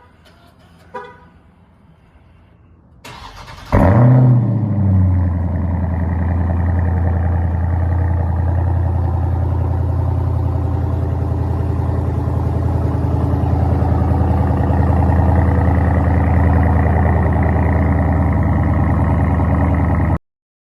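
Dodge Challenger Scat Pack's 392 HEMI V8 (6.4-litre) cranks and fires about three seconds in, flares briefly in revs, then settles into a steady idle that cuts off suddenly near the end.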